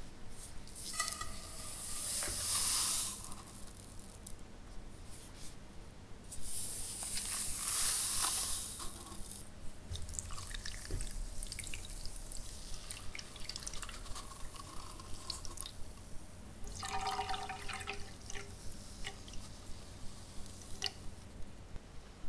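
Water poured from a paper cup into a ceramic-lined pot, followed a few seconds later by a second longer pour as the sugar goes in. After that, light ticks come about twice a second, with a brief louder clatter about seventeen seconds in.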